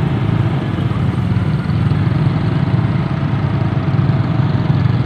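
A vehicle engine running steadily and close by, a low, even engine sound with no break.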